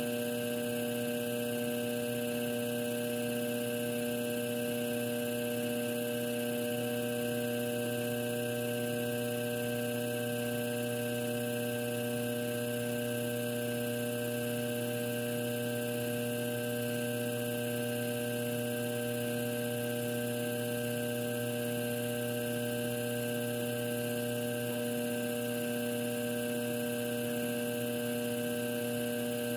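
Electric potter's wheel spinning, its motor giving a steady, unchanging electrical hum.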